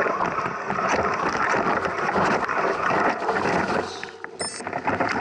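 Mountain bike riding over a rough trail: continuous tyre noise and rattling with many small knocks, easing off about four seconds in.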